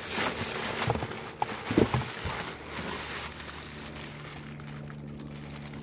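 Clear plastic bags crinkling and rustling as bagged doll parts are handled in a cardboard box, with a few light knocks. After about three seconds the handling dies down, leaving a low steady hum.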